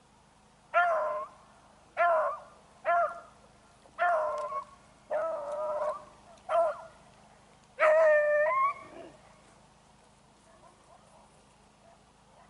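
Beagle baying on a rabbit's scent trail: seven yelping calls over about eight seconds, the last one drawn out for about a second.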